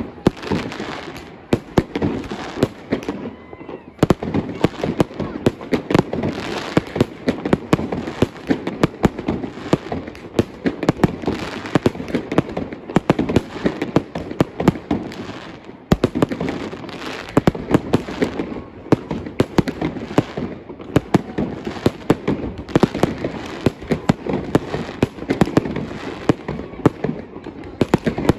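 Fireworks bursting close overhead in quick succession: a dense, near-continuous run of bangs and crackles, easing off briefly about four seconds in and again about halfway through.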